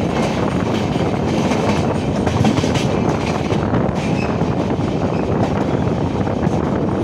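Express train running at speed, heard from an open coach door: a steady rumble with the clickety-clack of wheels over rail joints. A train on the next track rushes past in the first second or so.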